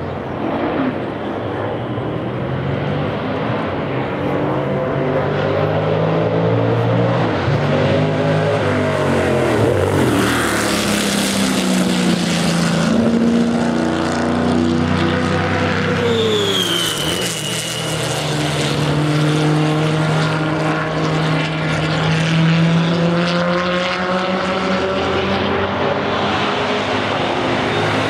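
Historic sports racing cars' engines running hard on track, pitch rising and falling as they rev, shift and go by, with a steady engine drone in between.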